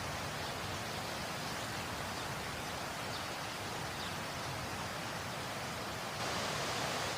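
Steady rushing of falling water from a waterfall, an even constant noise that grows slightly louder and brighter about six seconds in.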